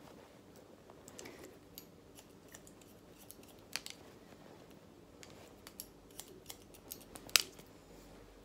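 Hairdressing scissors snipping wet hair taken up on a comb: a run of short, sharp snips at uneven spacing, the loudest about seven seconds in.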